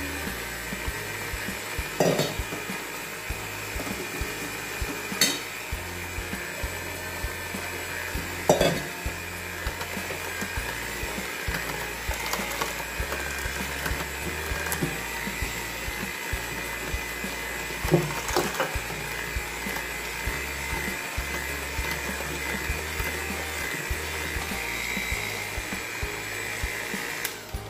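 Cuisinart electric hand mixer running steadily with a high whine as its beaters beat cake batter in a stainless steel bowl, with a few sharp knocks along the way. It cuts off at the very end.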